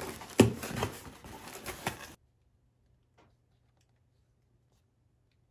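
Cardboard shipping box being pulled open by hand, a rustling, crackling handling noise with sharp clicks of the flaps and plastic packing for about two seconds. It then cuts off abruptly to near silence.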